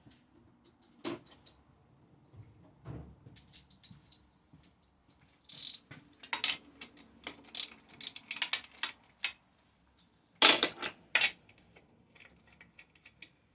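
Irregular metallic clicks and clatters of hand tools being handled during chainsaw disassembly. The clicks are sparse at first, come densely in the middle, and the loudest group comes about ten seconds in.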